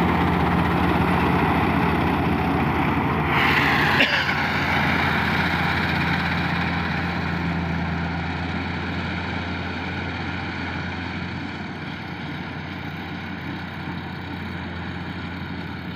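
Combine harvester's diesel engine running steadily with a low hum and machine whir, getting gradually quieter. A short hiss and a knock come about four seconds in.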